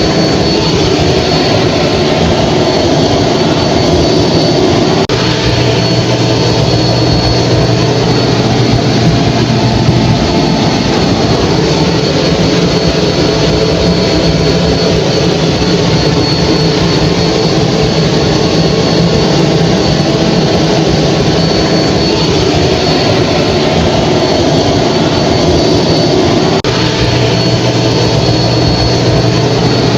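Hair dryer running steadily: a loud, even rush of blown air with a faint high whine over a low motor hum. The hum changes pitch abruptly twice, about five seconds in and near the end.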